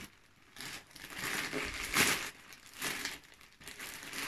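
Plastic courier mailer bag crinkling in irregular bursts as it is opened and handled, with the sharpest crackle about two seconds in.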